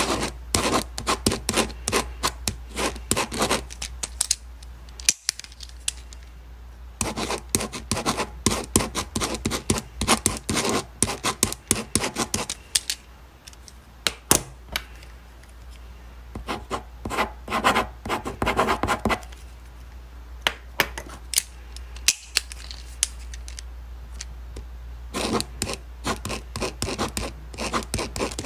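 Ballpoint pen writing on paper in bursts of quick, scratchy strokes and ticks, separated by short pauses, over a steady low hum.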